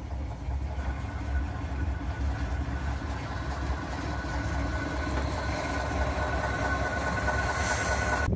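Miniature railway train running slowly: a steady low rumble from the small diesel locomotive and the carriage on the rails, with a faint thin whine that comes in about a second in and grows a little louder toward the end.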